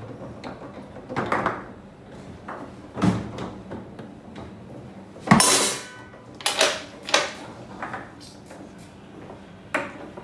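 Foosball table in play: the hard ball struck by the rod men and knocking against the table walls, a run of sharp, irregularly spaced knocks. The loudest knock, about halfway through, rings briefly.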